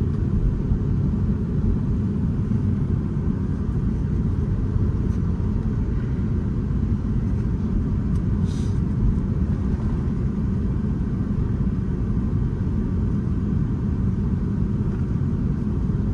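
Steady low rumble of engine and airflow noise heard inside the cabin of an Airbus A350-941, with a faint brief hiss about halfway through.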